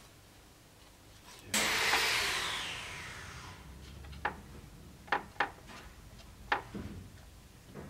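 Workshop handling sounds: a sudden rushing noise about a second and a half in that fades away over a second or so, then a few short, sharp clicks and taps as small items are picked up and set down on a wooden workbench.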